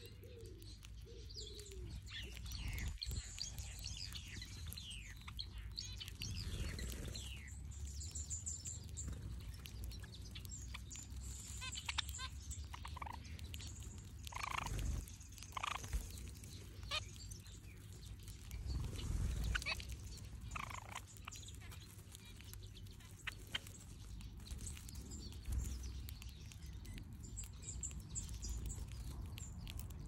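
A flock of aviary finches, zebra finches among them, chirping and calling: many short overlapping chirps, with high thin twittering off and on, over a steady low rumble.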